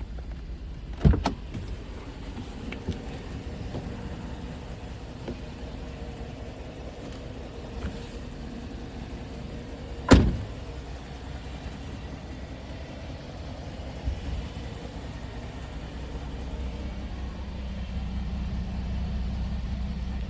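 Holden VE Commodore SIDI engine idling steadily, in a car flagged for a misfire. Two sharp knocks stand out, about a second in and again about ten seconds in.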